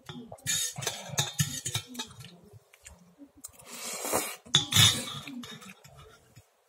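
Someone eating noodles right at the microphone: a metal fork clinks and scrapes against the dish. Then come two loud slurps about four to five seconds in as noodles are sucked into the mouth.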